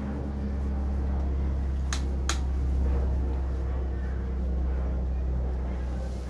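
A steady low rumble with a faint hum, and two sharp clicks close together about two seconds in.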